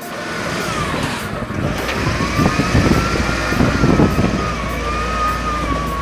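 SDLG wheel loader's diesel engine working under load as it lifts a bucket of soil: a low steady drone with a high whine that wavers in pitch over it, louder about halfway through.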